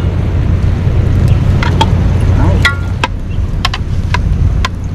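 Light clinks and knocks of a glass pot lid and a plastic bowl against a metal cooking pot as leaves are tipped in, about a dozen short ticks, some with a brief ring. Under them runs a steady low rumble.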